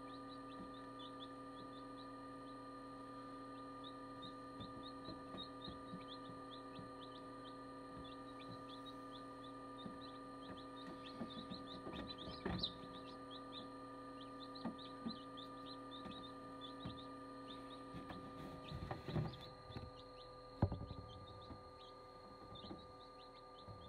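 Newly hatched chicks peeping in quick, high, falling chirps over the steady hum of an incubator. A few soft knocks come in the middle and about three-quarters in, the loudest near the end.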